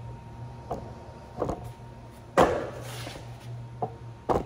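Several sharp knocks and clunks, spaced irregularly, the loudest about halfway through with a brief rattling tail, over a steady low hum.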